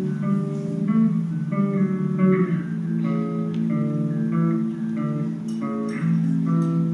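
Guitar playing melodic licks: a run of short, changing single notes over held lower notes.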